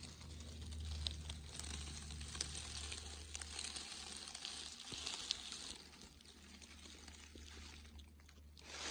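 Dry fallen beech leaves rustling and crackling as they are disturbed close to the microphone, with a low rumble. The crackling eases off about two-thirds of the way through.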